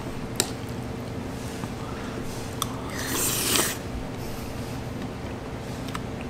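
Someone eating with a spoon from a dish: a few light spoon clicks and a short hissing slurp about three seconds in, over a steady low hum.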